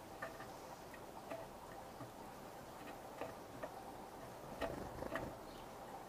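Red-bellied woodpecker pecking at seed in a metal tray feeder: irregular sharp taps, about one or two a second, with the loudest few in quick succession near the end.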